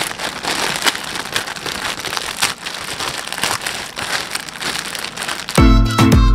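A grey plastic poly mailer bag crinkling and rustling as it is pulled open by hand and the contents are rummaged. Music comes in loudly near the end.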